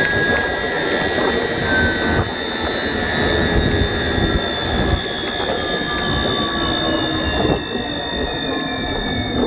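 Siemens SWT-2.3 wind turbine drivetrain heard from the open nacelle roof: a steady mechanical whine over wind rumble, with fainter tones gliding slowly down in pitch as the turbine's power and rotor speed drop during shutdown toward grid disconnection.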